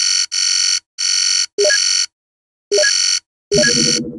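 Electronic buzzer sound effect, a harsh high-pitched buzz repeated in about six half-second bursts with dead silence between them, a couple with short chirps mixed in. A lower-pitched tone joins the last burst, which cuts off abruptly near the end.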